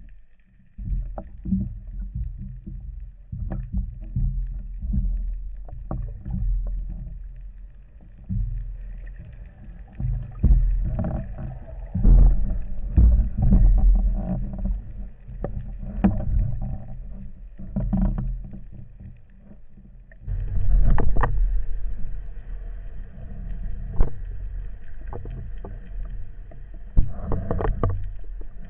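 Muffled water sloshing and a low rumble picked up by a camera in the water during a spearfishing dive, with scattered sharp clicks and knocks throughout and louder surges of movement.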